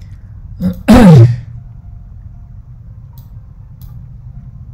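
A man's short, loud vocal noise about a second in, falling in pitch, followed by a few faint clicks.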